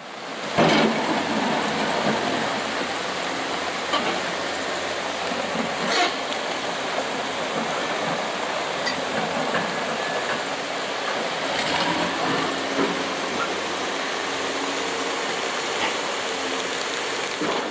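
Steady rushing noise, with a few sharp clicks or knocks scattered through it.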